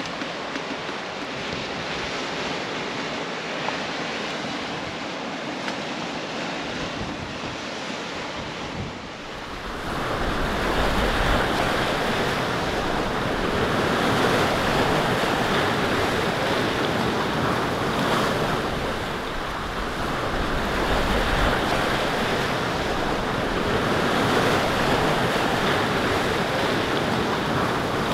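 Steady noise of wind and ocean surf breaking on a rocky shore. About nine seconds in, the sound gets louder and fuller.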